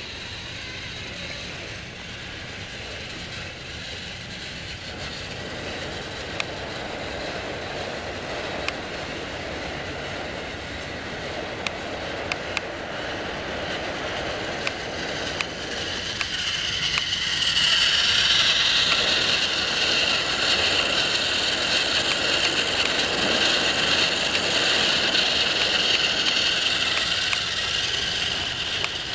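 Battery-powered Trackmaster toy train motors whirring as the engines run along plastic track, with occasional sharp clicks. The whine grows louder and higher about halfway through, as an engine runs close by.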